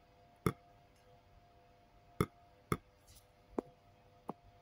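Five sharp knocks and clinks of things being handled on a kitchen counter, over a steady faint hum.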